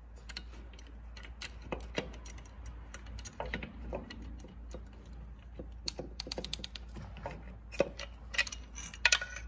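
Light, irregular clicks and taps from a hand ratchet on a long socket extension working a hard-to-reach intake horn bolt, with a quicker run of clicks near the end.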